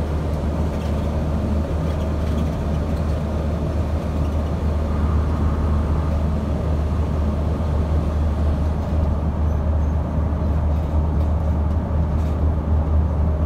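Steady low road and engine rumble heard from inside a moving vehicle, even and unbroken throughout.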